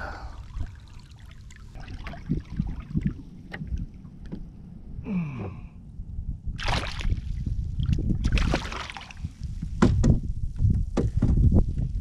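Wind buffeting the microphone as a low rumble, with water splashing about six seconds in and again a couple of seconds later as a small redfish is grabbed by hand and lifted out of the water beside a small boat. Sharp knocks near the end.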